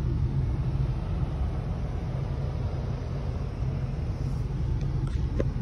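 Ford F-350 Super Duty pickup's engine idling, heard from inside the cab as a steady low rumble, with a faint click near the end.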